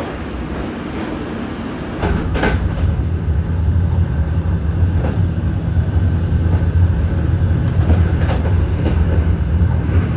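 A noisy rumble, then about two seconds in an abrupt switch to a loud, steady low vehicle hum, with a few faint clicks over it.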